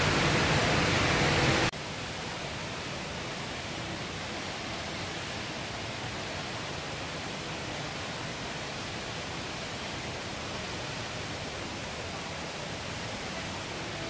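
Steady rushing noise of the Rain Vortex, a tall indoor waterfall pouring into its basin. Under two seconds in it drops suddenly to a quieter, even hiss.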